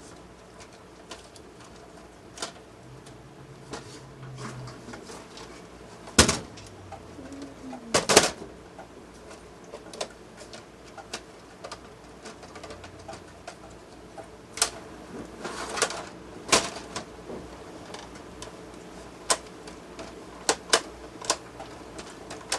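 Intermittent sharp clicks and knocks of plastic and metal parts of a laptop docking station being handled and pried apart. The loudest come about 6, 8, 14.5 and 16.5 seconds in.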